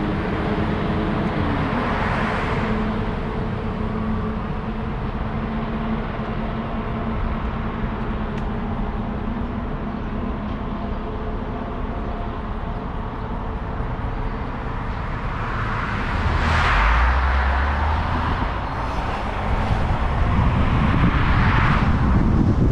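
Road and wind noise from the roof of a moving minivan in city traffic: a steady hum under tyre and air noise, with swelling whooshes about two seconds in and twice near the end, the first of those two carrying a deep rumble.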